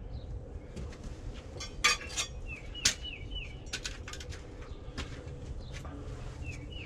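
Sharp clinks and knocks of concrete pavers being handled and set in place, several hard, scattered clacks. A bird calls twice in a quick run of short down-slurred notes, once midway and again near the end.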